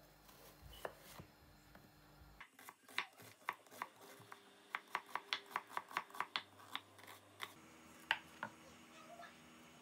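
Chef's knife slicing a red onion on a wooden cutting board: a run of quick knocks of the blade on the board, about three a second. Near the end come a few separate cuts as green chillies are sliced.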